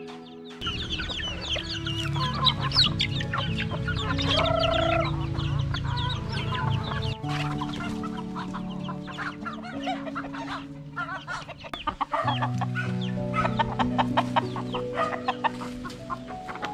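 Domestic chickens clucking: many short calls overlapping throughout, with one longer held call about four and a half seconds in.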